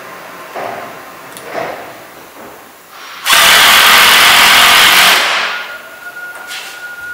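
Cordless drill running for about two seconds near the middle, driving a leg screw into a plastic panel, after a few light knocks of handling.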